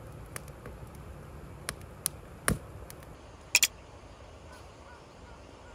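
Firewood crackling in a campfire stand: scattered sharp pops over a low steady noise. About halfway through it gives way to quieter open-air ambience with one short, sharp double click.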